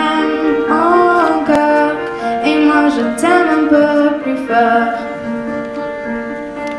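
Grand piano playing a song accompaniment, with a girl singing over it.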